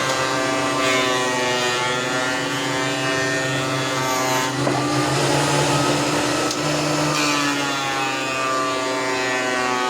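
Makita 2012NB 12-inch thickness planer running with a steady motor whine. The pitch sags and recovers, and a rougher, noisier stretch comes through the middle, as under the load of a cut.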